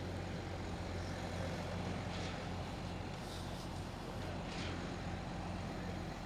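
Heavy diesel engine running steadily at a constant low hum, with a few brief high hisses over it.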